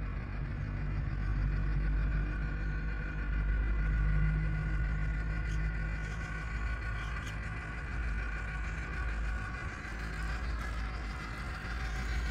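Whine of an RC crawler's HobbyWing AXE 2300KV sensored brushless motor and geartrain as a 1/10 Traxxas TRX4 drives, several steady tones drifting slightly in pitch, over a low rumble.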